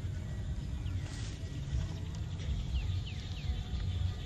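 Outdoor ambience: a steady low rumble, with a few faint, short falling chirps about halfway through.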